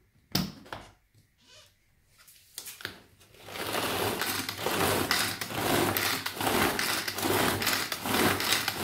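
Tupperware Extra-Chef pull-cord chopper being pulled over and over, from about three and a half seconds in, its spinning blades churning frozen peach pieces into sorbet: a whirring, rattling churn that surges with each pull, about once a second.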